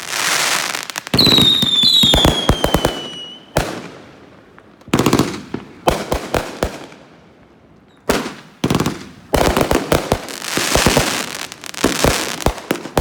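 Fireworks going off: a run of sharp bangs, each followed by crackling bursts, with a whistling shell's falling whistle from about one to three and a half seconds in.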